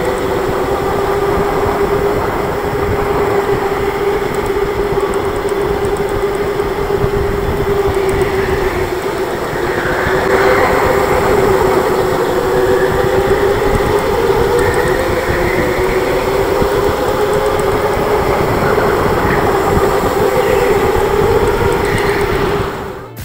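Electric go-kart motor whining steadily over the rumble of tyres and chassis on the track, the whine's pitch drifting slightly up and down with speed.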